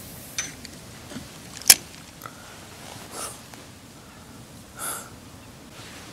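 Fishing rod and reel being handled while a marker weight is worked along the bottom: a few light clicks and one sharp click a little under two seconds in, with two short breaths close to the microphone later on.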